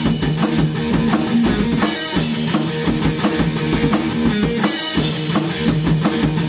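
Rock music: a band playing a drum kit and guitar at full volume with a steady beat.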